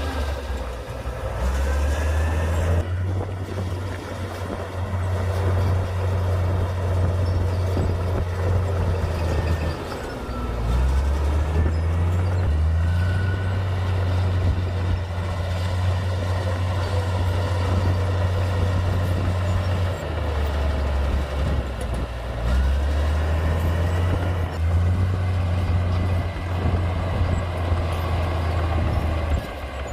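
Komatsu D58P bulldozer's diesel engine running under load, its deep note dipping and rising again a few times as it works.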